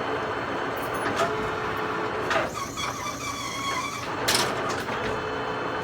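Acra engine lathe running with a steady hum. A high, multi-pitched whine runs for about two seconds in the middle, set off by sharp clacks at its start and end.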